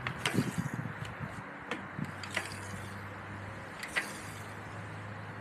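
Mountain bike's RockShox suspension fork being pushed down and let back up with its rebound damping set to the slowest, giving a few faint clicks and knocks over a steady low hum.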